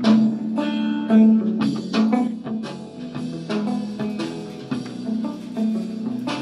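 Backing track with drum kit and guitar over a steady bass line, playing on while the trumpet rests.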